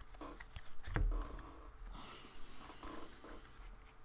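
Baseball cards being handled and flipped through by hand: soft sliding and rustling with light clicks, and a dull thump about a second in.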